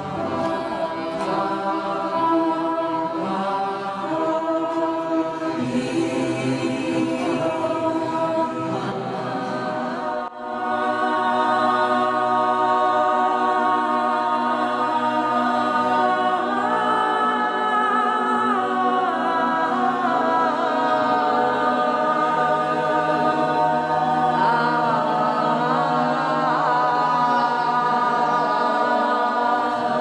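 A group of voices singing a slow chant together, holding long drawn-out notes, with a brief break about ten seconds in.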